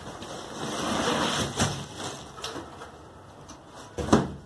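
A soft-sided suitcase wrapped in plastic film being pulled out of a cardboard shipping box: rustling and scraping of plastic and cardboard, with a few knocks, the loudest near the end as the case is set down.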